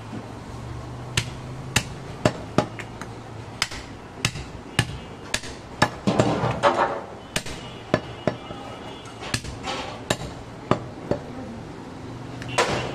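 Heavy cleaver chopping goat meat on a wooden log chopping block: a run of about twenty sharp chops, irregularly spaced at roughly two a second.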